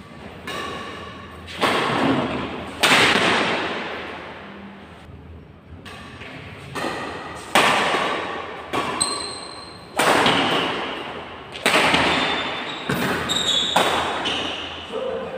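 Badminton racket strikes on a shuttlecock during a rally, a run of sharp hits about a second or two apart, each echoing for a second or more in a large hard-walled, tiled hall. A few short high squeaks from court shoes come between the hits.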